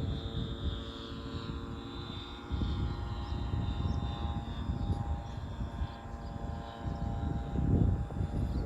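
F3A aerobatic radio-controlled model airplane in flight: a steady propeller-and-motor tone that sags slightly in pitch, with gusty low noise underneath.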